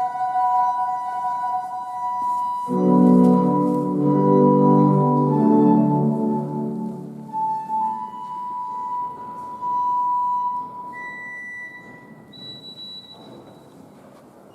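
Old church pipe organ sounding long, held single notes, with a full low chord entering about three seconds in and fading out after about eight seconds; near the end single high notes are held one after another. The playing is odd and tuneless, like the organist trying out notes rather than playing a piece.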